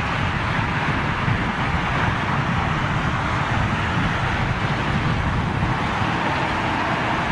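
Steady outdoor rushing noise, with a fluctuating low rumble of wind buffeting the microphone.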